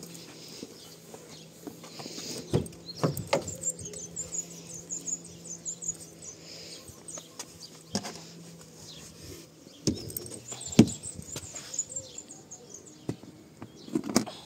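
Small birds twittering in quick runs of high chirps, twice, over a steady low hum, with a few sharp knocks, the loudest about eleven seconds in.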